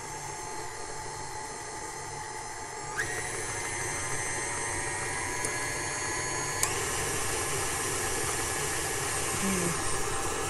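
KitchenAid tilt-head stand mixer running, its flat beater creaming butter, peanut butter and sugar in the steel bowl. The motor sound steps up about three seconds in and again near seven seconds as the speed is turned up.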